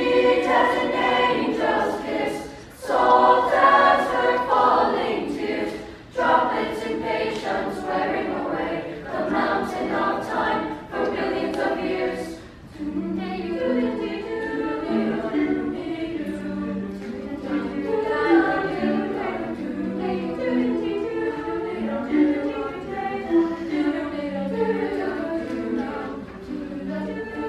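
Youth choir singing, full and loud at first, then from about halfway a softer passage with sustained low notes.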